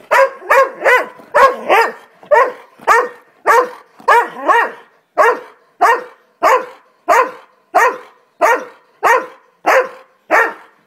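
Irish Setter barking over and over in a steady, unbroken string of loud barks, about two a second.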